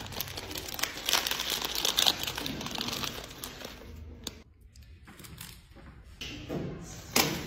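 Plastic snack packet crinkling and rustling as a hand digs in and pulls out snack sticks. The crackling dies down about four seconds in.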